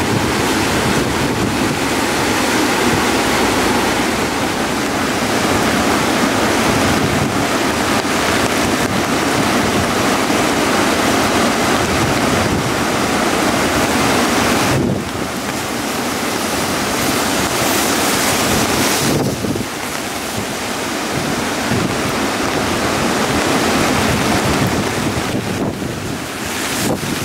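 Swollen river in flood after heavy monsoon rain, white water rushing and churning in a steady roar.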